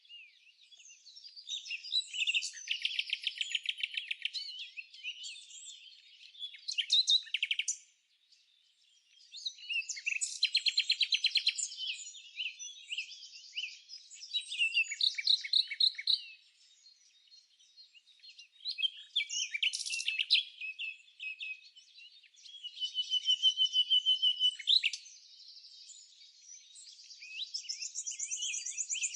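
Songbirds singing: phrases of rapid trills and chirps come every few seconds with short pauses between them.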